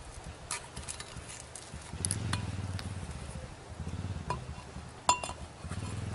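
Clicks and clinks of well-pipe fittings being handled and pushed onto a well casing, with one sharp ringing clink about five seconds in. A low steady hum runs underneath from about two seconds in.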